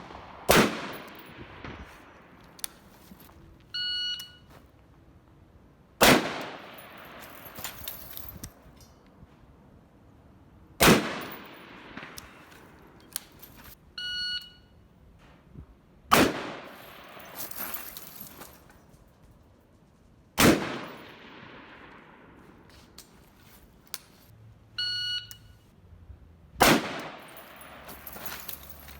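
Six single rifle shots from a semi-automatic M16A1-style AR-15 (SP-1 type with a C7 upper), fired slowly about every five seconds, each dying away in a short echo. A brief ringing ding sounds three times between shots.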